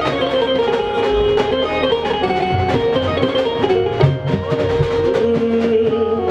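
Live Punjabi band playing an instrumental break: a held melody over steady drum strokes.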